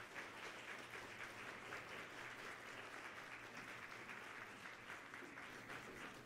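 Audience applauding, a faint, steady clatter of many hands clapping.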